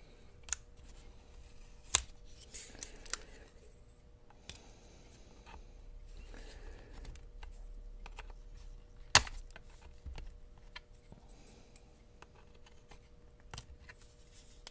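Light clicks, taps and scraping of a plastic spudger and fingertips on the battery and logic board of an opened MacBook Pro as the sticker over the battery connector is peeled back, with two sharper clicks about two seconds in and about nine seconds in.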